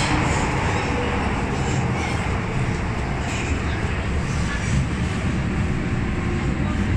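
Inside a Metro-Cammell M-Train metro car while it is moving: a steady rumble of wheels on rail and running gear. The noise eases a little over the first few seconds as the train draws into a station platform.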